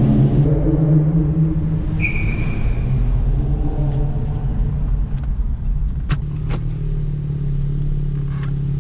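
Car engine running while driving, heard from inside the cabin, its note easing off and then holding steady. A short high squeal comes about two seconds in, and a couple of sharp clicks near the end.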